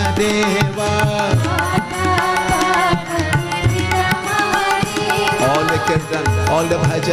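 Indian devotional music: tabla-style hand drums playing a steady rhythm of deep strokes and sharp slaps under a gliding melody.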